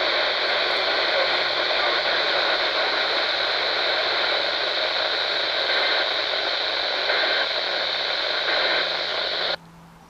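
Handheld RadioShack weather radio's speaker hissing with heavy static, the broadcast all but lost to poor reception. The static cuts off suddenly near the end.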